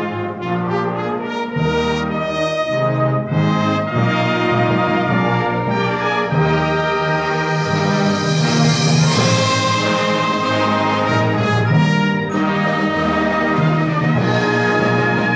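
Symphonic wind band playing loud, brass-heavy music in full chords, swelling to its brightest about halfway through.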